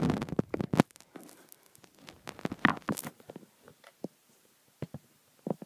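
Handling noise: clicks and light knocks as the camera and small plastic toys are moved about on a tabletop. The knocks are dense in the first second, then scattered and sparse.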